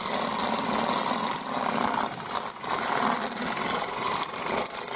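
Motor-driven chicken plucker running steadily as a Cornish Cross meat chicken is held against it inside a barrel to strip the feathers.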